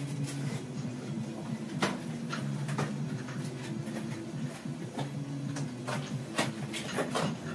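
A steady low hum with many short clicks and taps scattered through it.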